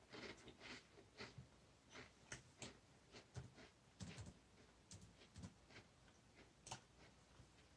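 Faint, irregular light clicks and crunches of a crisp cracker being eaten and a computer mouse being handled.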